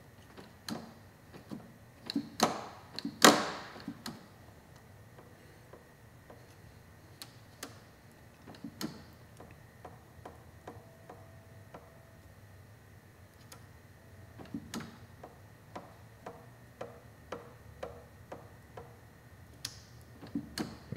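Light, irregular clicks and taps from a CRG billet-aluminium clutch lever and perch as its cable slack adjuster is turned and the lever is worked by hand, with a few louder knocks about three seconds in.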